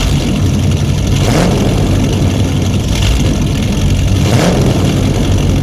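Engine sound effect for a monster truck: a big engine running loudly and revving in swells about every second and a half.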